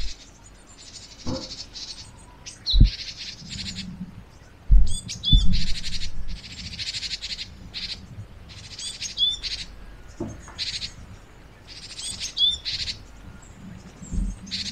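Wild birds singing in woodland: repeated high, buzzy trilled phrases and short gliding chirps, with a few brief low thumps in the first half.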